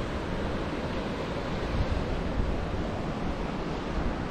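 Steady ocean surf mixed with wind blowing on the microphone, an even rushing noise with a heavy low rumble.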